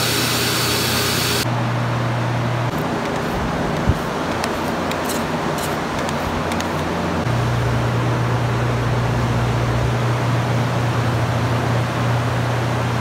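Carpet-cleaning extraction wand hissing over a sheepskin rug, cutting off suddenly about a second and a half in. It gives way to the steady hum of drying blowers and air movers, with a knock about four seconds in and a few light ticks.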